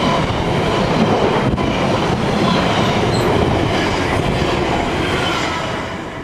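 Container freight train passing close by at speed, its wagon wheels rumbling and clattering on the rails. The sound fades away near the end as the last wagons go by.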